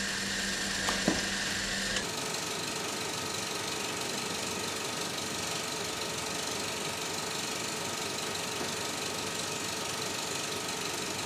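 A small mechanism running steadily under an even hiss, with a short knock about a second in.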